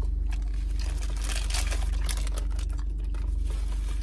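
Crackling rustle of a paper burger wrapper being handled for about two seconds, over a steady low hum of a car engine idling.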